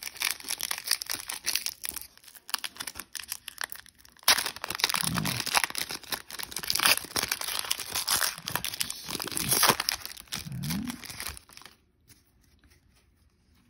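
Foil trading-card pack wrapper being torn open and crinkled by hand, a dense crackle that grows louder about four seconds in and stops about two seconds before the end.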